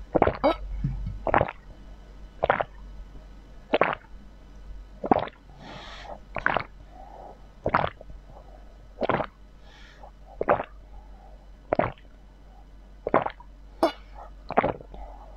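A woman gulping a drink straight from a glass bottle, close-miked: about a dozen swallows in a steady rhythm, roughly one every second and a quarter.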